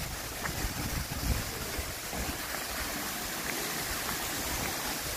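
Waterfall rushing: a steady, even wash of falling water, with a few low thumps near the start.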